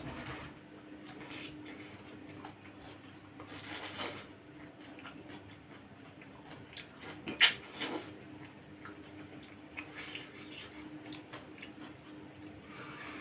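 A person eating rice and chicken curry by hand: fingers mixing rice into the gravy on a plate and chewing, with soft wet squishing and small clicks. One sharp click stands out about seven seconds in. A steady low hum runs underneath.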